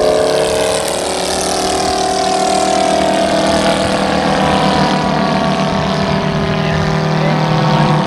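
Engines of two Udet Flamingo biplanes droning steadily as the planes fly past, the pitch holding nearly level with slight drifts.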